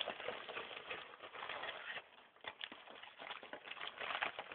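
Faint rustling and crackling of packaging being handled, with scattered light clicks.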